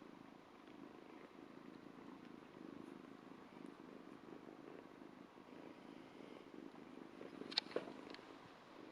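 A two-month-old Ragdoll kitten purring steadily and softly, with a few sharp clicks near the end.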